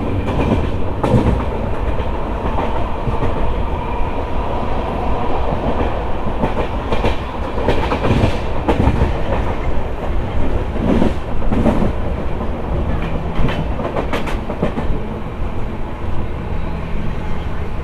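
Passenger train running along the track with a steady rumble, its wheels clacking over rail joints at uneven intervals.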